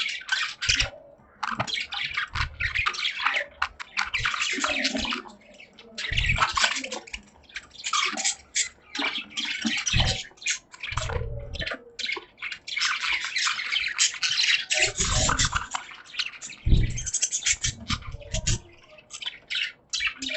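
Caged budgerigars chattering and warbling in a dense, continuous stream of chirps and scratchy notes, with a few low thumps.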